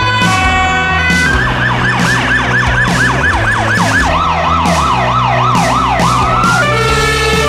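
Emergency-vehicle sirens spliced one after another. First come steady tones, then a yelp sweeping up and down about three times a second. A faster yelp follows, then a brief rising wail, and steady tones near the end.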